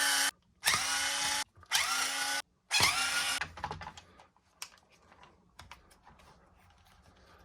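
Small electric drill-driver running in short spurts of about a second, each spinning up quickly to a steady whir, as the screws holding a plastic RC truck's rear plate are backed out. After about three and a half seconds the tool stops, leaving only faint clicks and light rattles of small parts being handled.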